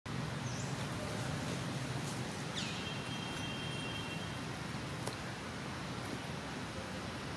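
Steady outdoor background hiss. About two and a half seconds in, a thin whistled call slides down and then holds one pitch for about a second and a half.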